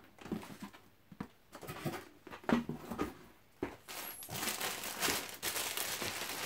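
Clear plastic wrapping around a garment crinkling as it is handled. Scattered rustles and taps come first, and the crinkling turns continuous about four seconds in.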